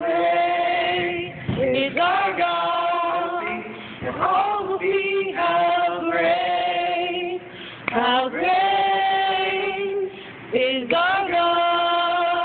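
A small group of voices, the women's the most prominent, singing a worship song unaccompanied in long held phrases with short breaks between them.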